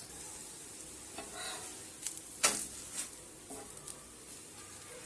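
Hand-pressed moong-and-rice-flour roti frying in oil on an iron griddle, a faint steady sizzle. There is a single sharp click about two and a half seconds in.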